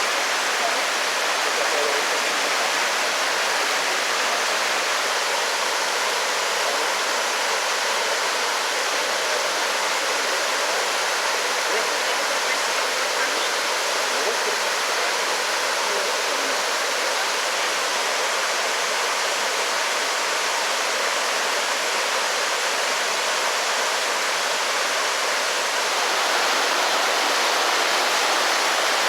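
Rushing water running steadily, an even hiss of a creek flowing over rocks, a little louder near the end.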